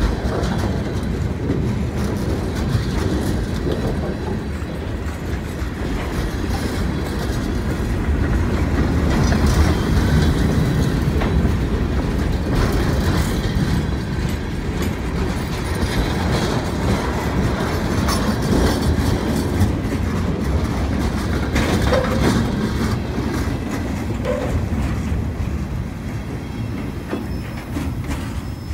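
Freight cars rolling past at speed: a steady rumble of steel wheels on the rails, with rapid clickety-clack over the rail joints. The noise falls away near the end as the last cars pass.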